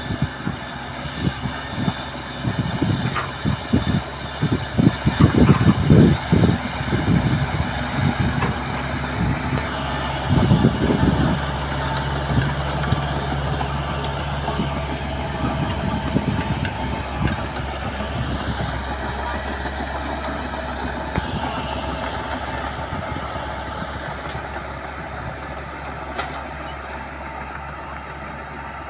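Mitsubishi BD2J bulldozer's diesel engine running, with irregular clanks and knocks over the first ten seconds or so, then a steady drone that slowly fades.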